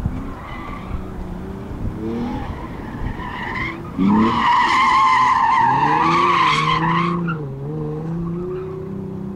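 Hyundai Genesis Coupe engine revving up and down as it is driven hard, with a loud tyre squeal for about three seconds from about four seconds in as the car slides through a turn.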